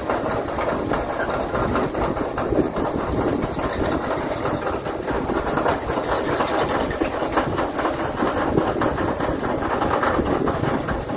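Spudnik 780 telescoping potato piler running, a steady, rapid mechanical clatter as its boom moves.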